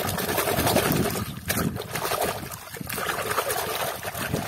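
Soapy water sloshing and splashing in a wash basin as a hand stirs and rummages through it, with short lulls in the splashing about a second and a half in and again near the middle.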